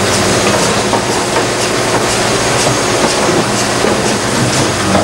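Liebherr R962 hydraulic excavator's diesel engine running steadily under load as its bucket digs into soil, with repeated clicks and clanks from the bucket and linkage.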